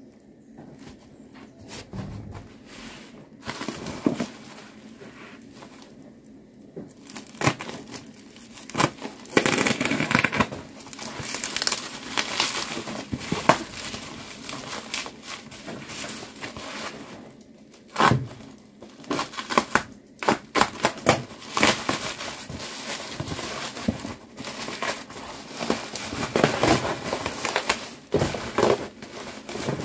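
Thick plastic bubble wrap being torn open and pulled off a boxed parcel by hand. It is an irregular run of crinkling, crackling and tearing with sharp clicks, sparse for the first few seconds and much busier from about seven seconds in.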